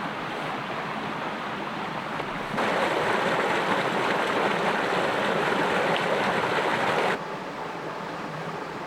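Mountain creek flowing and splashing in a steady rush, much louder for about four and a half seconds in the middle, jumping up and dropping back abruptly.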